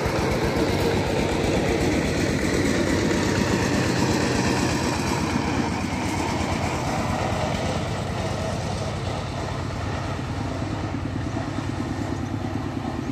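A small engine running steadily nearby, a little louder in the first half and easing off after the middle.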